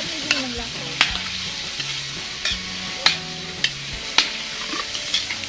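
Pork sizzling in hot oil in a wok (kawali), stirred with a spatula that scrapes and knocks against the pan about seven times; the pork has started sticking to the bottom of the pan.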